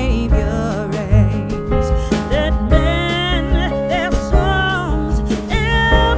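Background music: a song with a singing voice wavering in pitch over instruments and a regular beat.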